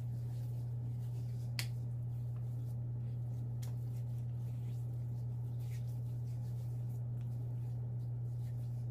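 Hands rubbing and patting skin cream over a freshly shaved face and neck: faint scattered skin slaps and clicks, the sharpest about a second and a half in, over a steady low hum.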